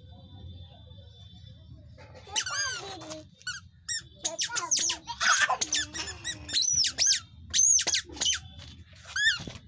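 A toddler's squeaky shoes squeaking as the child steps about: a run of short, high squeaks that bend in pitch, starting about two seconds in and coming irregularly until near the end.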